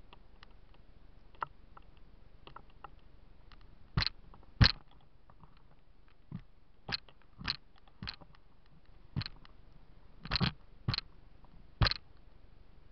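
Irregular sharp clicks: a few faint ticks at first, then about ten louder clicks at uneven intervals from about four seconds in, the loudest a little after that.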